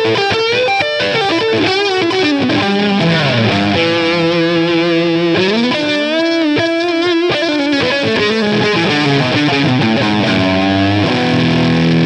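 High-gain distorted electric guitar lead played on a 1992 PRS CE24 fitted with Gibson 57 Classic humbuckers. It plays held notes that bend up and down and shake with vibrato, mixed with quick runs of notes.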